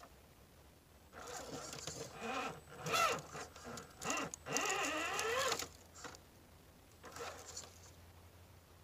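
Axial UMG10 RC rock crawler's electric motor and gears whining in bursts as it climbs over boulders, the pitch rising and falling with the throttle, with a rising whine just before the burst ends about five and a half seconds in. A shorter burst follows near the end.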